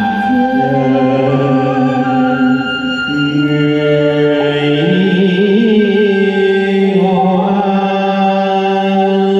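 A male voice singing a quan họ folk song through a microphone and loudspeaker, in long held notes that step from pitch to pitch, with a wavering ornament in the middle.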